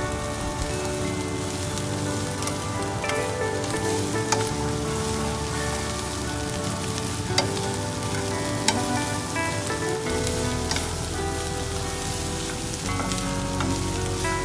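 Bitter melon, egg and green onion sizzling in oil in a wok as they are stir-fried with wooden chopsticks, with a few sharp taps of the chopsticks against the pan.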